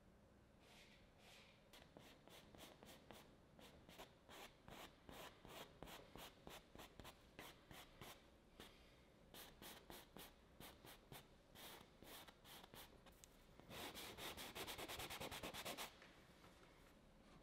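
Faint strokes of a paintbrush working oil paint on stretched canvas, a few strokes a second, then a louder rapid scrubbing run of about two seconds near the end that stops suddenly.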